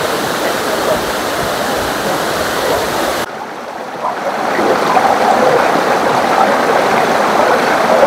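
Waterfall water rushing steadily. A little over three seconds in, the sound drops suddenly, then comes back louder from about four seconds in.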